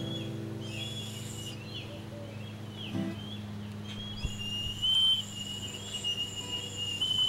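Bone whistle blown: a few short high chirps, then from about four seconds in one long, steady high whistle.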